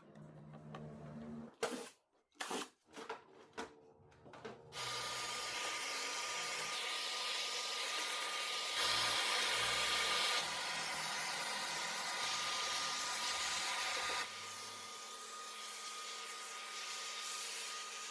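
A few scattered clicks and knocks. Then, about five seconds in, a small vacuum cleaner switches on and runs steadily with a thin whine. It is louder for a moment near the middle and a little quieter for the last few seconds.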